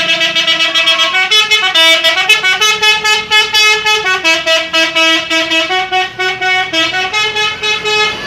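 Bus 'telolet' musical air horn playing a tune: several notes stepping up and down, each note chopped into a fast stutter of about five pulses a second.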